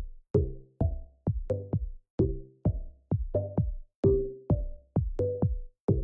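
Electronic music with a steady drum-machine beat, about two hits a second.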